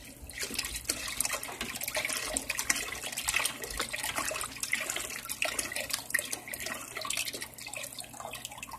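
A quart of chicken broth poured in a steady stream from a carton into a stainless steel stock pot, splashing into the broth already there, with many small crackles through the pour.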